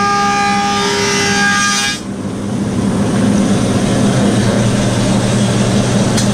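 Woodmaster 725 planer cutting a hard osage orange board, its cutterhead singing with several steady whining tones. About two seconds in the whine stops abruptly as the board clears the cutterhead, and the planer runs on unloaded with a steady lower hum.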